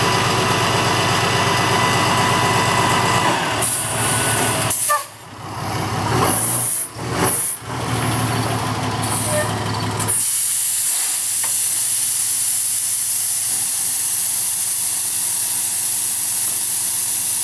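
Rollback tow truck's engine running with a steady hiss over it. The sound drops out briefly twice near the middle, and in the second half the engine sits lower under a strong, even hiss.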